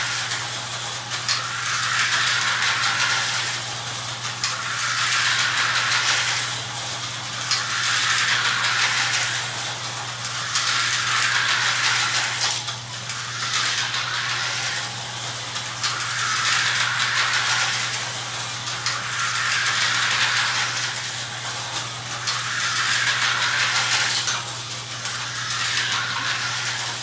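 Tyco HO slot cars running laps on plastic track: small electric motors whirring and the cars rattling along the slots, swelling every two to three seconds as they pass close, over a steady low hum.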